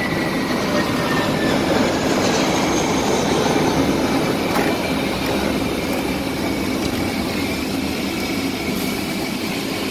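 Steady jet engine noise with a faint whine that falls slightly in pitch in the first second or so.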